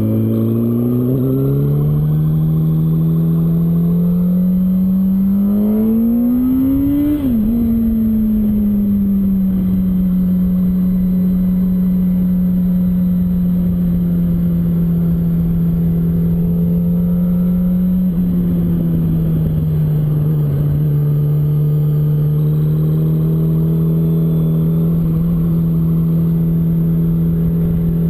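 Yamaha R1's inline-four engine pulling under way, with wind and road rush. The engine note climbs steadily for about seven seconds, falls sharply, then holds an even pitch. It steps down again about eighteen seconds in and rises slightly near the end.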